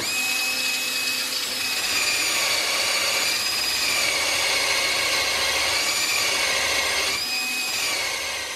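Cordless drill running at speed, spinning a polyurethane longboard wheel while a round file is held against it to cut grooves, with a steady rasping under the motor's whine. The whine sags slightly in pitch from about two seconds in and rises back near the end.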